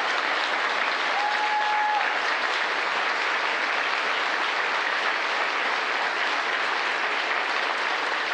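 A crowd applauding steadily, with one short steady note about a second in.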